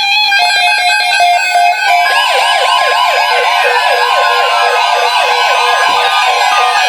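Weather alert radio broadcast: for about two seconds, rapid digital tone bursts of the SAME alert header, then weather alert radios set off by the alert, sounding a fast warbling siren alarm with a steady tone underneath.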